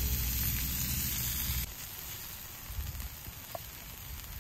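Hamburger patties sizzling on a griddle over a wood fire, with a few faint crackles. The tail of background music plays over it and cuts off suddenly about a second and a half in, leaving the sizzle alone.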